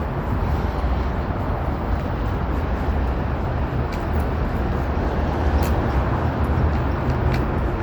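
Steady rumble of city street traffic, with a few faint sharp clicks.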